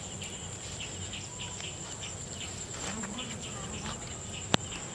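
Insects trilling with a steady high-pitched drone, with one sharp click near the end.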